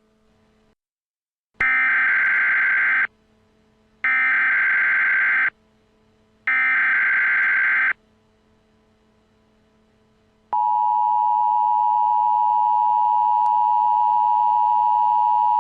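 Emergency Alert System tones: three short screeching bursts of digital header data, each about a second and a half long and evenly spaced, then, about ten seconds in, the steady two-tone attention signal.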